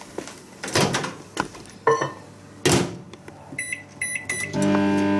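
Microwave oven being loaded and started: a couple of clunks from the door, three short keypad beeps, then the oven starts running with a steady hum near the end.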